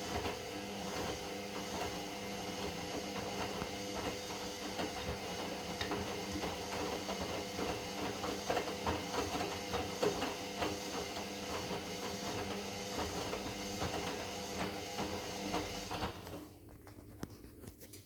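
Indesit EWD71452 front-loading washing machine in its wash phase: the drum motor hums steadily as the drum turns, with many small irregular knocks. The drum stops for a pause near the end, and the sound drops away.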